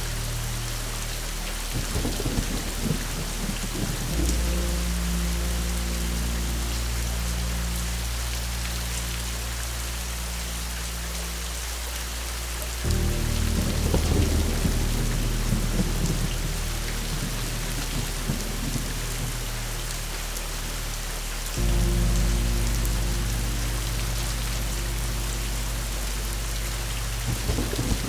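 Steady rain with rolls of thunder rumbling in about two seconds in, again near the middle and near the end, over soft low sustained tones that change chord every eight or nine seconds.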